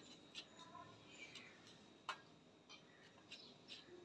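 Near silence with a few faint, scattered light clicks, the clearest about two seconds in.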